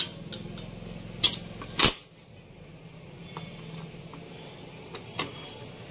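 Metal clinks and taps as the gear shafts and gear-shift drum of a Yamaha 135 gearbox are handled and seated in the aluminium crankcase. A few sharp clicks come in the first two seconds, the loudest near two seconds in, followed by a couple of softer taps.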